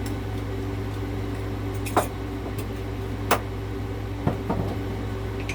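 RV air conditioner running with a steady hum, with a few light clicks and taps over it: two sharp ones about two seconds in and a second later, and fainter ones near the end.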